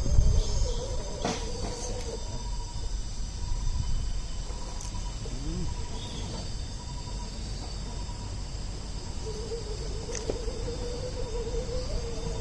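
Insects chirping steadily in several high, even tones, over a continuous low rumble.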